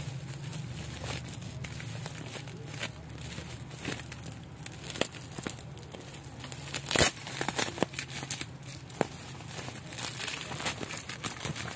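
Plastic bubble wrap being handled and crinkled by hand: irregular crackles, with one louder crackle about seven seconds in.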